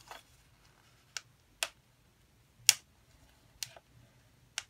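About six light, scattered clicks and taps of small craft embellishments being handled and set down on a work surface, unevenly spaced, with the sharpest a little under three seconds in.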